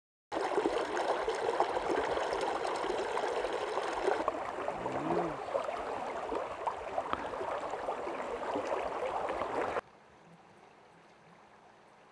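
Shallow river water running close by, a steady rushing noise around hands releasing a fish. About ten seconds in it cuts to a much fainter hiss.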